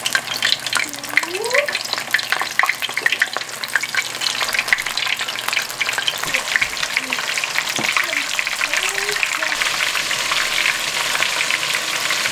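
Flour-dredged squirrel pieces deep-frying in hot corn oil: a dense, steady crackling sizzle.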